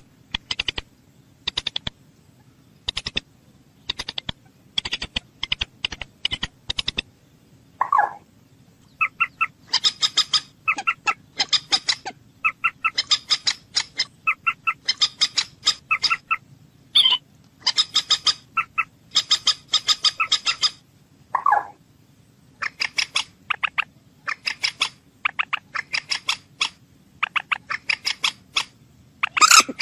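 Moorhen calling: short bursts of rapid, sharp clicking notes repeated over and over, with a lower, drawn-out call about 8 seconds in and again about 21 seconds in.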